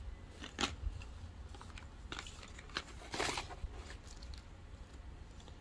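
Faint rustling and crinkling of paper shred and cardboard as items are handled in a cardboard box: a few short rustles, the longest a little after three seconds in.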